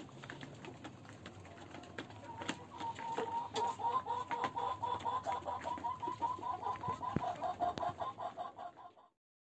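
Young desi hens at a feeder: a rapid run of short, high clucking notes, about five a second, begins a couple of seconds in, over scattered clicks of beaks pecking feed from a plastic feeder pan. The sound cuts off near the end.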